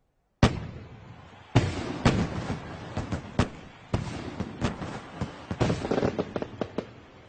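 Fireworks going off: one sharp bang, then a run of bangs and pops for several seconds that thins out and fades near the end.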